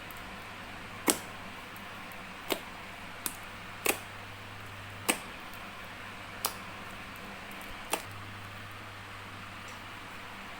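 Seven sharp clicks or taps, spaced irregularly a second or so apart, over a steady low hiss and hum.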